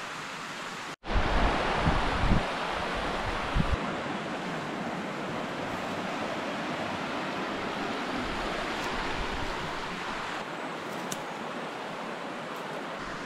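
Shallow rocky river rushing steadily over stones, with a few low bumps in the first few seconds.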